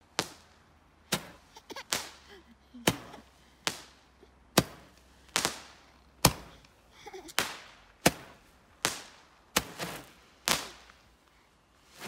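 Roman-candle-type fireworks firing shot after shot: about a dozen sharp pops, roughly one a second, each with a short fizzing tail.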